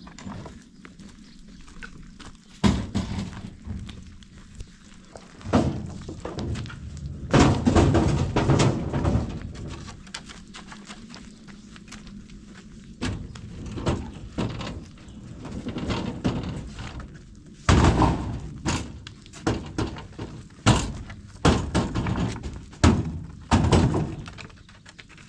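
A series of heavy thuds and knocks at uneven intervals, some in quick clusters, as of something being struck or dropped.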